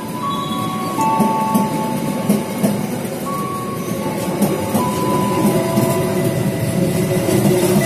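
Passenger train carriages rolling past close by: a steady rumble of steel wheels on the rails, with brief high squeals from the wheels that come and go.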